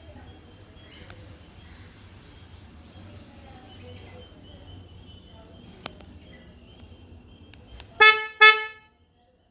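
Hyundai Venue's horn giving two short chirps about half a second apart, the lock/unlock confirmation beep now switched back on. A few faint clicks come just before the chirps.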